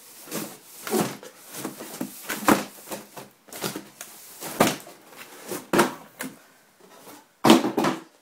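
Cardboard box and packaging scraping and rustling in irregular strokes as a keyboard is pushed and slid out of its box, with the loudest scrape about seven and a half seconds in.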